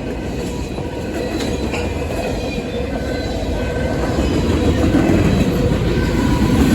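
Freight train rolling past, a dense steady rumble of wheels on rail with faint high wheel squeal, growing louder toward the end.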